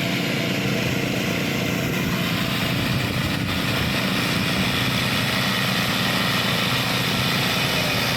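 13 hp Honda single-cylinder engine of a homemade zero-turn ride-on mower running steadily under load while climbing a slope in tall grass. The drive is slipping, because the mower is struggling up the incline.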